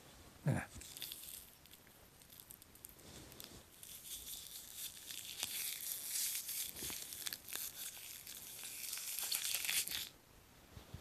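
Thin plastic crinkling and crackling as a Shiba Inu puppy bites and chews at a scrap held in a person's fingers. The crackle grows louder in the second half and stops abruptly near the end. About half a second in, the dog gives one short, low vocalisation.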